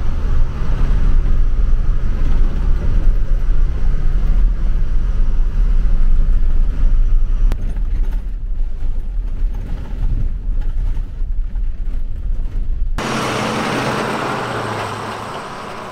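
School bus driving on a gravel logging road: a steady deep rumble of engine and rough road from inside the cab. About 13 seconds in it cuts to a steady rushing hiss with a low hum under it.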